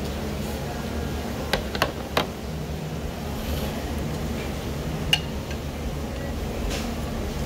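Chopsticks and a small bowl clicking against tableware: three quick clicks about a second and a half in and one more about five seconds in, over a steady low room hum.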